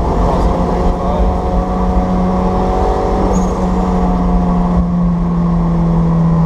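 Cabin noise of a 1994 Toyota MR2 Turbo cruising at road speed: a steady drone from its turbocharged four-cylinder engine and tyres, its pitch shifting slightly about halfway.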